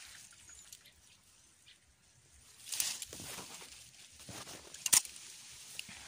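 Leaves and branches rustling as someone pushes through dense undergrowth, with a sharp snap about five seconds in.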